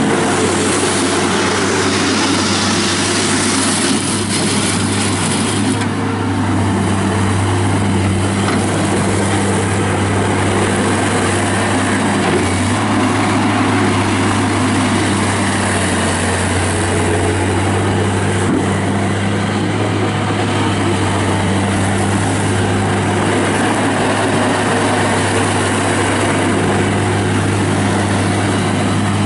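Mustang 2054 skid steer loader's four-cylinder Yanmar diesel engine running loud and steady at one engine speed. The high hiss over it eases off about six seconds in.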